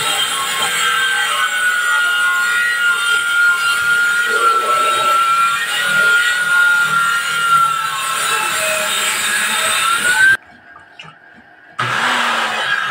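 Black & Decker circular saw cutting wood, its motor whine steady with slight dips in pitch under load. The sound drops away suddenly for about a second and a half near the end, then starts again.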